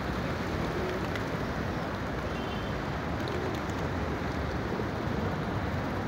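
Steady outdoor city noise: an even low rumble, like distant traffic mixed with wind on the microphone, with no distinct events standing out.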